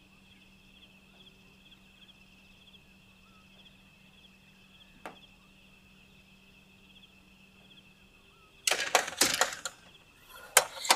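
Faint steady hum and a thin, rippling high chirring of the night air, with one click about five seconds in. Near the end come two quick runs of loud knocks and clatter as a heavy front door is handled.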